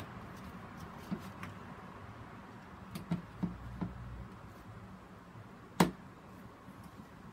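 Handling noise as a plastic grid mounting board is pressed down over sphagnum moss on a plastic bucket: a few soft knocks in the middle and one sharp click near the end.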